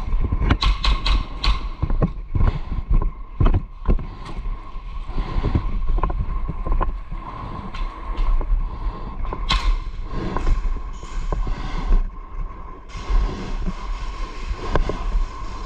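Airsoft field sounds from a player's own gear: a quick string of sharp snaps about half a second in, then scattered knocks and rustling movement noise.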